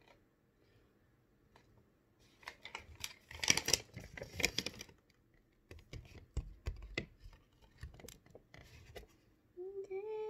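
Plastic milk-powder pouch crinkling and rustling as it is handled, loudest a few seconds in, with a few low bumps around six to seven seconds in. Near the end a woman starts humming.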